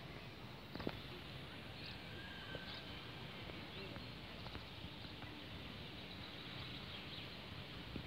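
Faint open-air ambience: a steady low hiss with scattered short bird chirps, and a single sharp click about a second in.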